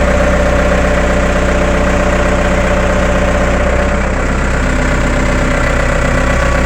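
Case 1845 skid steer engine running steadily at idle, with a constant whine over the engine sound.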